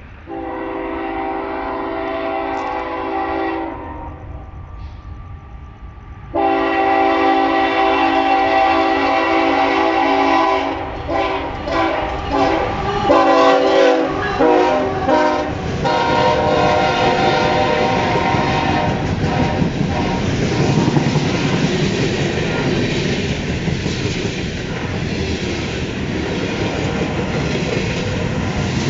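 Ferromex freight locomotive's air horn played as a horn show: a blast of about three seconds, then a longer blast from about six seconds in that breaks into a run of short choppy toots. From about sixteen seconds the horn gives way to the loud steady rumble and wheel clatter of the train passing close by.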